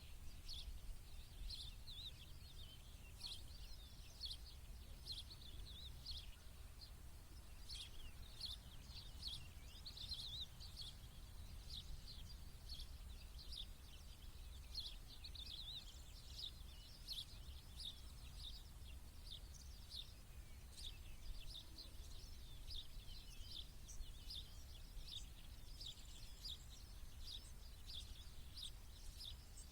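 Small birds chirping in a dense, continuous chorus of short high chirps, several a second, over a low steady rumble.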